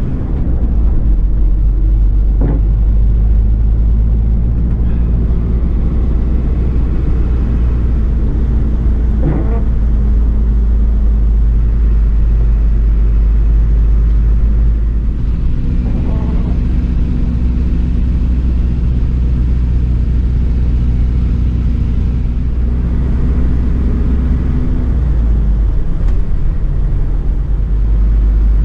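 Mercedes-Benz Atego expedition truck's diesel engine running steadily while driving, a loud low rumble with a steady engine drone. The engine note shifts about 25 seconds in.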